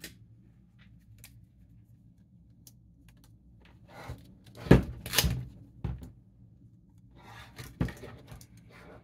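An opened lithium-ion tool battery pack, its plastic cell holder full of 18650 cells, being handled and turned over on a desk. After a quiet start it gives a few short knocks and clatters, the loudest about five seconds in, then some rubbing and scraping with another knock near the end.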